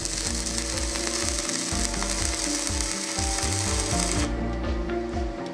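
Stick (MMA) welding arc from a rod electrode laying a bead on thick steel angle bar, a steady crackle that stops about four seconds in when the arc is broken.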